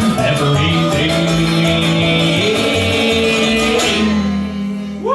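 Live acoustic string band of banjo, acoustic guitar and upright bass playing the last bars of a song. The fast strumming stops about four seconds in and the final chord rings out over a held bass note.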